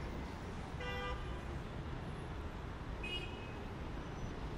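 City traffic ambience: a steady low rumble of road traffic, with a short horn toot about a second in and a brief high beep near the three-second mark.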